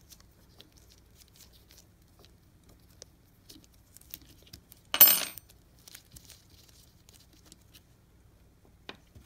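Faint handling clicks from an Allen key worked in the back-cover screws of an air impact wrench, with one short, sharp metallic clink about five seconds in.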